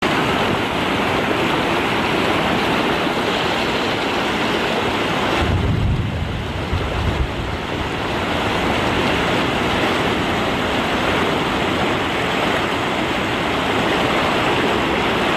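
Fast-flowing muddy floodwater rushing steadily. Around six seconds in, a low rumble of wind buffets the microphone for a couple of seconds.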